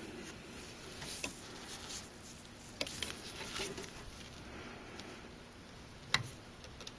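Faint scraping of a small plastic spatula spreading thick, dry thermal compound, with a few light clicks of plastic against metal, about three sharper ones spread through.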